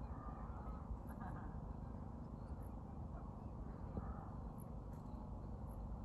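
Greylag geese giving a few short, faint calls over a steady low rumble.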